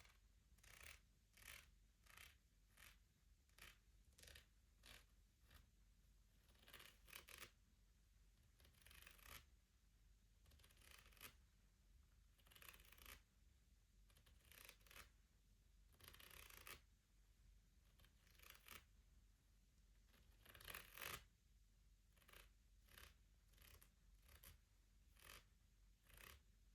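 Quiet fingernail tapping and scratching on wood, most likely a wooden Shut the Box board: short crisp strokes about once a second, with a few longer scratches mixed in.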